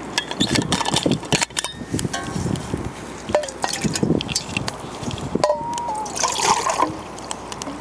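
Water poured from a bottle into a metal canteen cup, splashing and trickling, after a few clicks and taps as the bottle cap is unscrewed.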